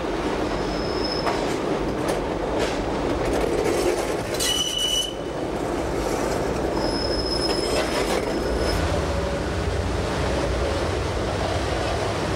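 Metre-gauge rack railway train running down a steep curving line: a steady rumble with wheels clicking over rail joints and short high-pitched wheel squeals about a second in, around four to five seconds, and again from about seven to eight and a half seconds.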